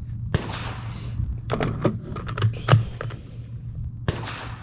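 Short-barrelled AR-style rifle being handled at the bench: a string of sharp metallic clicks and clacks, with brief rustling before and after.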